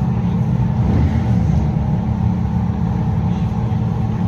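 A steady low motor rumble, like an engine idling, holding an even pitch throughout.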